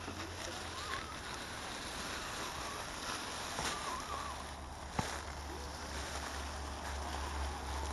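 Outdoor ambience with a steady low rumble of wind on the microphone, faint indistinct sounds, and one sharp click about five seconds in.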